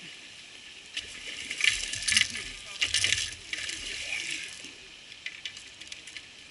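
Landing net hauled out of the pond and shaken: a quick series of splashes and clinks as water flies off the mesh and the frame and pole knock, loudest in the first few seconds, then lighter ticks.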